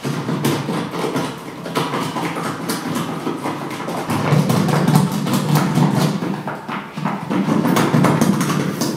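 Paper and a plastic bag rustling and crackling right against microphones: a dense stream of crackles over a low rumble, louder from about four seconds in.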